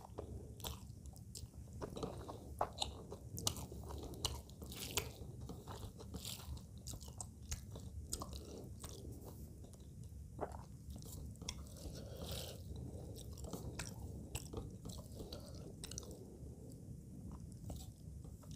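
Close-miked chewing of a mouthful of rice and pabda fish curry, with irregular wet mouth clicks and smacks.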